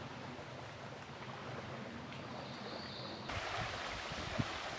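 Steady outdoor ambient rush, a hiss with no clear single source. About three seconds in it changes abruptly to a brighter, louder rush with a few low thumps.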